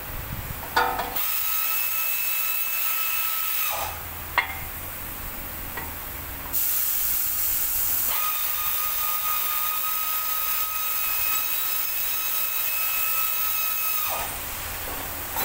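Air-powered tool, likely a pneumatic ratchet, running in two long runs, a steady whine over loud hissing air, while the brake caliper bolts are run in. The first run lasts about two and a half seconds and the second about seven and a half. A sharp metal knock comes just before each run.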